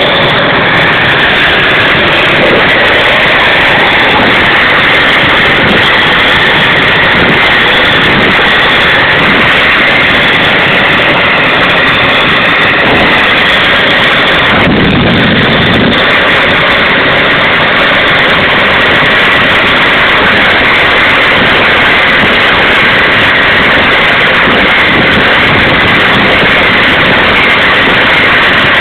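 Homemade gas turbine engine on a pocket bike running, a steady, very loud roar with a high whine over it. The sound shifts briefly about halfway through, then carries on unchanged.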